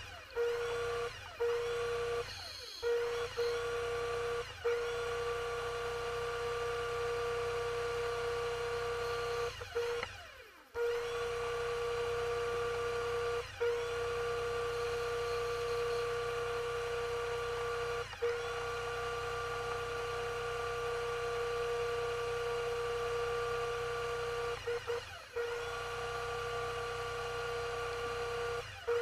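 Steady electric motor whine of a diver propulsion vehicle running underwater. It cuts out briefly several times, longest about ten seconds in, and spins back up each time with a short rising pitch.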